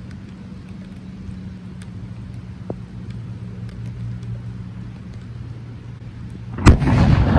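Thunder: a sudden sharp crack near the end that rolls into a loud rumble. Before it, a steady low hum with scattered faint ticks of rain.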